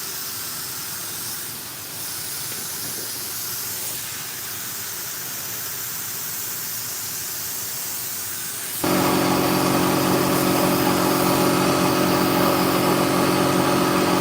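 Steady hiss of a paint spray gun spraying. About nine seconds in, it cuts to a louder, steady motor hum of one fixed pitch.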